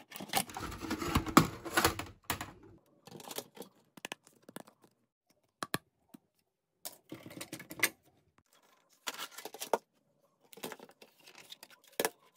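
Clicking and clattering of a Sky+ HD set-top box's metal chassis and plastic casing being handled and slid apart, in irregular bursts. The loudest and busiest handling comes in the first two seconds, followed by scattered clusters of clicks.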